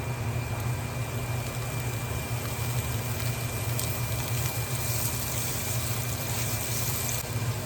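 Chopped potato and carrot sizzling as they fry in hot oil in a pan, the sizzle growing brighter about halfway through and dropping back shortly before the end, over a steady low hum.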